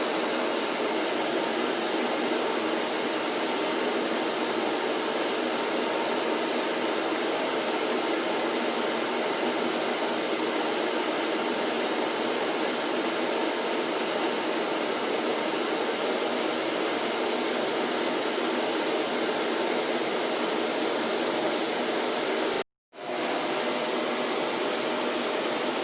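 Vacuum cleaner running steadily with an even whooshing hum. It drops out for a split second near the end, then resumes.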